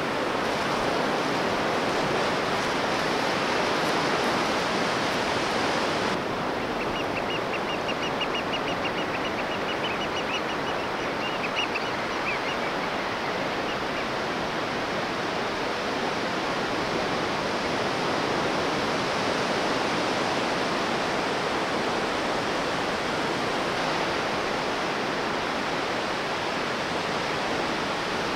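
Steady rushing wash of surf on a sandy beach. For several seconds about a quarter of the way in, a quick run of high, rapid ticks sounds over it.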